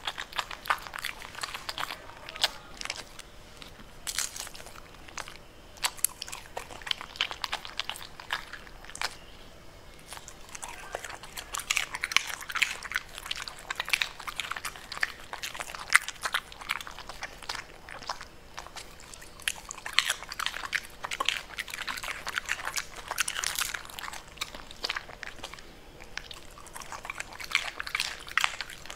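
Pembroke Welsh Corgi chewing raw purple cabbage leaves: dense, crisp crunching that goes on almost without a break, easing off briefly about ten seconds in and again near the end.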